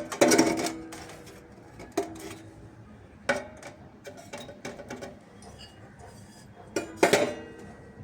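A few irregular metal strikes that ring briefly after each hit, the loudest just after the start and a cluster about seven seconds in.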